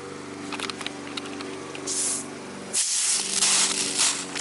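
Pistol-grip garden hose spray nozzle spraying water in hissing bursts: a short one about two seconds in, then a longer, louder spray from just before the three-second mark. The nozzle has just been fitted to the hose and is being tried out.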